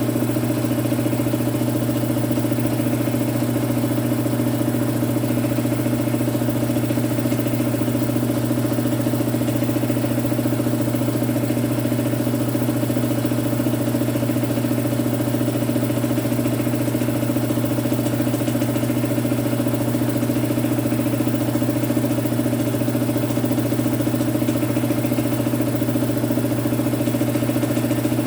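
Electric compressor running steadily with a constant motor hum, its pitch and level unchanging throughout.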